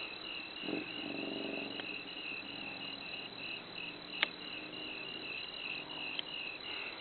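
Night insects, most likely crickets, chirping in a fast, even pulse that runs on without a break, with a sharp click about four seconds in.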